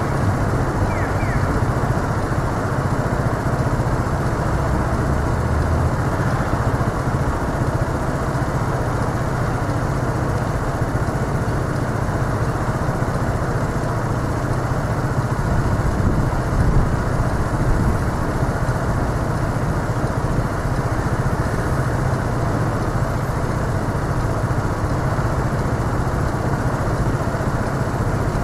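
Steady city road traffic: a constant low rumble of passing engines and tyres with no breaks.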